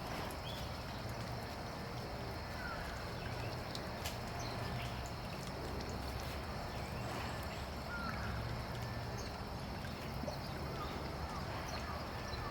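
Steady trickle of water with faint, short chirps of small birds every few seconds.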